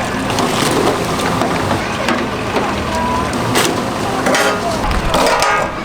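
Busy street-stall background: a steady din with scattered sharp clicks and clatter, and faint voices.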